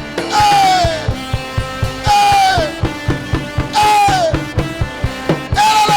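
Live worship band music: drums keeping a steady beat under a loud high note that slides downward, repeated about every two seconds.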